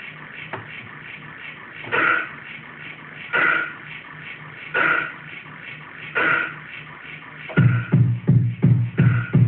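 Electronic beat played live on a hardware groovebox. Under a faint pulsing bass line, a snare or clap hits four times, about a second and a half apart. Near the end, a loud kick drum comes back in at about four beats a second.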